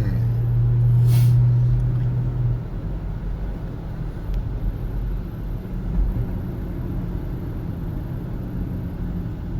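Engine and road noise inside the cabin of a 2006 Honda CR-V on the move. A strong low engine drone fades out about two and a half seconds in, leaving a steady low rumble.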